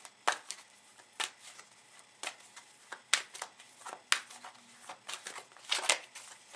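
Tarot cards being shuffled by hand: a string of short, irregular card slaps and flicks, with a quick cluster of them near the end.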